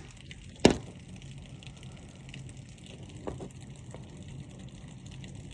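Steady rain with a few hailstones striking a hard surface: one loud sharp crack under a second in, and fainter knocks about three and four seconds in.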